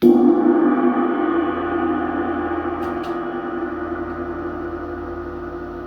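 A 1920s K. Zildjian Constantinople 22-inch heavy orchestral cymbal struck once on its rim, then ringing on with a dense cluster of tones that slowly fade.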